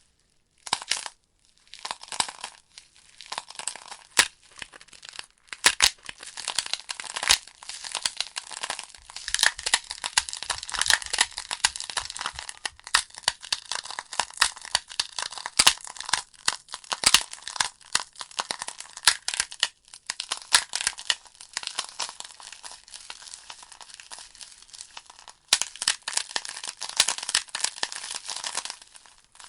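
Burning firewood logs crackling and popping, a dense run of irregular sharp snaps over a soft hiss of flames, thinning out at times.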